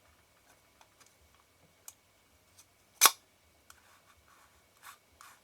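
Small metal lens parts being handled, with faint ticks and one sharp click about three seconds in, as the optical group is fitted into the Ai-Nikkor 135mm f/2 lens barrel.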